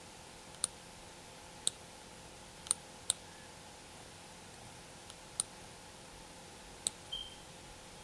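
Computer mouse clicking: about six single sharp clicks at uneven intervals over a faint steady hiss.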